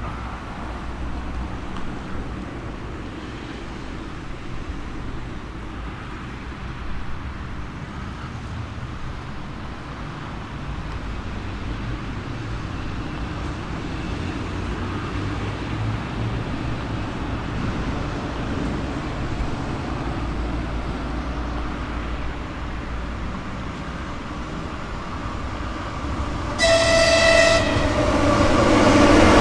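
Train approaching: a steady low rumble that slowly builds, one horn blast about a second long near the end, then the train noise grows louder as it draws near.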